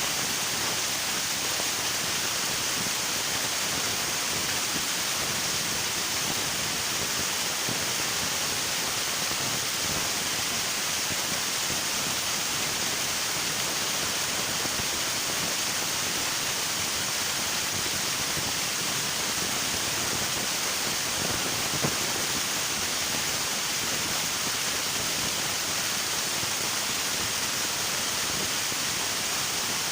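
River water rushing steadily, an even hiss of flowing water with no change in level.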